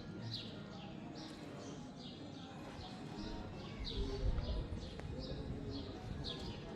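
Small birds chirping over and over, short high chirps two or three a second, over a low town-street rumble that swells briefly about four seconds in.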